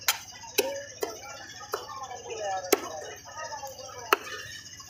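A heavy knife chopping through fish into a wooden log chopping block: about six sharp chops at uneven intervals, with voices talking in the background.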